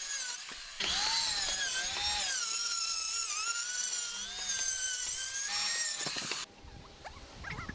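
Handheld circular saw cutting along the edge of an OSB roof panel. The motor's whine wavers up and down in pitch as the blade works through the board, then cuts off suddenly toward the end.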